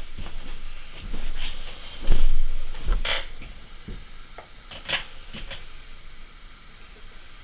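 Irregular handling noises: knocks, rubs and a few sharp clicks, loudest about two seconds in, as a hand reaches over the circuit and grips a potentiometer on its wire leads.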